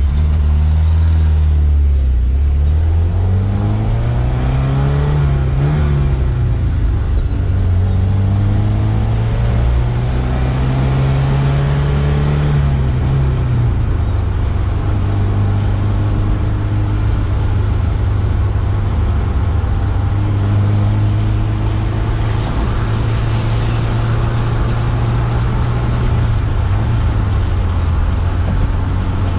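1979 Alfa Romeo Alfetta's engine, heard from inside the cabin, pulling through the gears. Its pitch climbs, drops at a shift about six seconds in, climbs again, drops once more, and then settles into a steady cruise over tyre and road noise.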